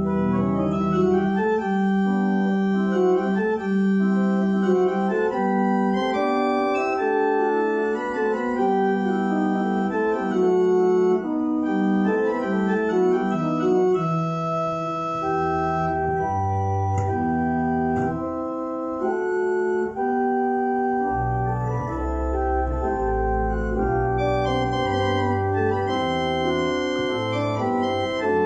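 Church organ playing slow, sustained chords, with deep pedal bass notes that grow strongest in the second half.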